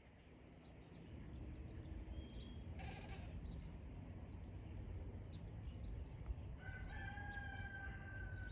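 Fowl-like bird calls over a low rumbling background: a short harsh call about three seconds in, then one long drawn-out call of about two seconds starting near seven seconds, with faint high chirps of small birds scattered throughout.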